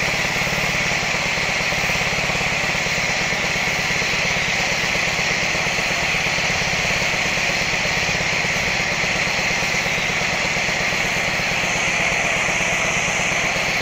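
Gas pressure washer engine running steadily under load while water and foam spray from the foam cannon gun, a constant spray hiss over the engine's drone.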